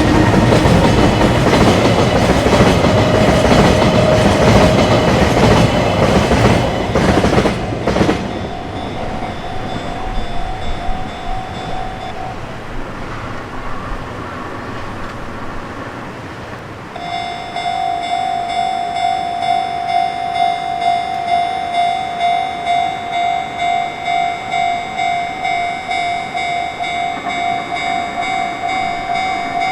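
A train passes over a Japanese level crossing for the first eight seconds or so while the crossing's electronic warning bell rings. The bell stops about twelve seconds in. About five seconds later it starts again, louder, a steady pulsing ding repeating about one and a half times a second as the crossing signals again.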